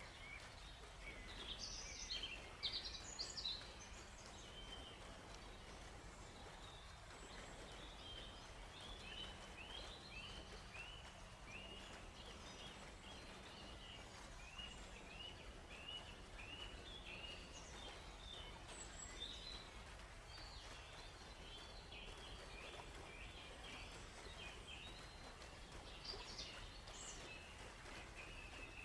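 Wild birds chirping and singing in a forest, with a louder flurry of chirps a second or two in and then a long run of short, evenly repeated down-slurred notes. A faint steady background hiss lies underneath.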